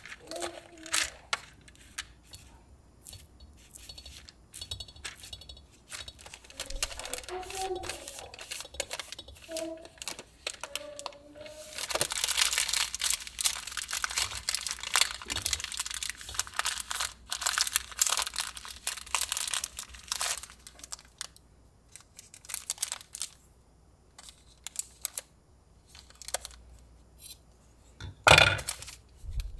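Parchment paper crinkling and rustling as it is folded around a block of butter, densest through the middle stretch, with scattered light taps and handling noises around it. A single sharp, louder sound comes near the end.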